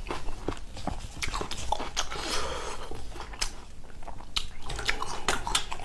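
Close-miked chewing of a mouthful of food, with irregular wet mouth clicks and crunches.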